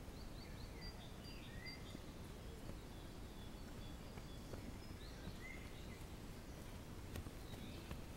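Woodland birds singing, short chirps and whistles every second or two, over a steady low rumble. A few soft footfalls of runners on the dirt path come near the end.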